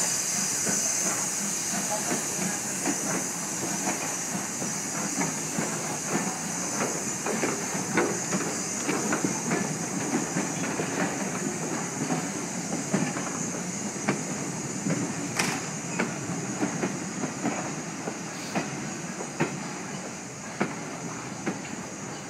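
Steam-hauled passenger train pulling away along a platform: the locomotive's steam hiss, strongest at first, over the steady clicking of the coaches' wheels on the rail joints, the whole slowly fading as the train draws away.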